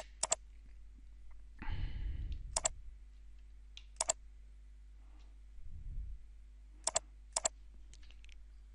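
Computer mouse button clicks, about six of them spread out, each a quick double tick of press and release. Twice in between comes a soft rush of low noise, like a breath on the microphone.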